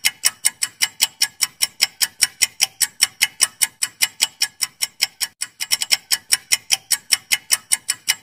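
Clock-ticking countdown timer sound effect: fast, even ticks, about five a second, with a short stretch of quicker, doubled ticks about six seconds in.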